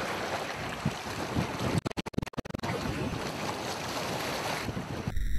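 Wind rushing on the microphone at the water's edge, a steady noisy hiss with waves. About two seconds in the sound breaks into a rapid stutter of dropouts for under a second, and near the end it changes abruptly to a thinner, filtered sound.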